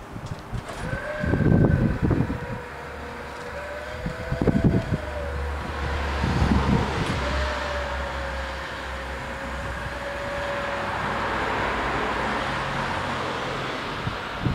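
Gusts of wind buffeting the microphone, loudest about a second and a half in and again around four and a half and six and a half seconds, over a steady low hum from the level-crossing barrier drives as the booms come down. The hum stops shortly before the end.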